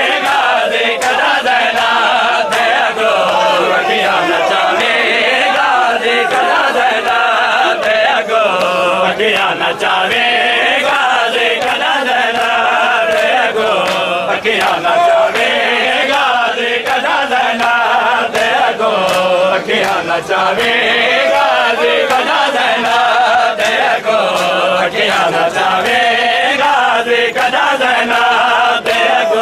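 Men's voices chanting a nauha (Shia lament) together, led by a reciter, over a steady beat of open-hand slaps on bare chests in matam.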